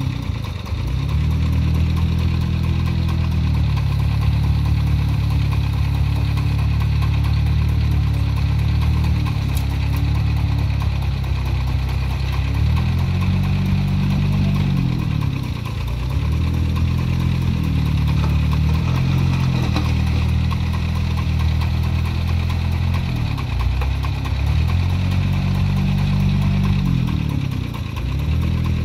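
Small wheel loader's diesel engine running hard while it scoops and lifts sand, its pitch dipping and recovering several times as the hydraulics take the load.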